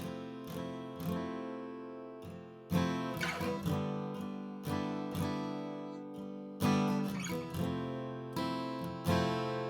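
Martin D-18 Authentic 1937 mahogany-bodied dreadnought acoustic guitar being strummed, chords ringing out and decaying between strokes, with harder strums about a third of the way in, two thirds of the way in and near the end.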